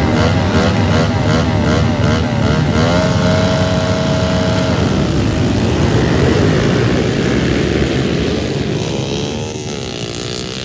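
A pack of 110cc four-stroke pit bikes (Kawasaki KLX110s and Honda CRF110s) revving at the start gate, throttles blipping up and down. About three seconds in the engines are held at high revs as the pack launches, and then the sound fades as the bikes pull away, pitch rising through the gears.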